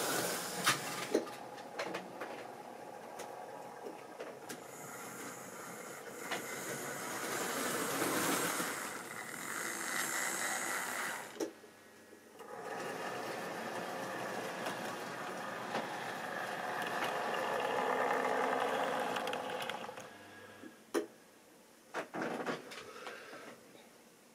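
Triang or Lima model railway train running on the track: small electric motor whirring and wheels rattling, growing louder and fading twice with a short drop about halfway. A few sharp clicks come right at the start and again near the end.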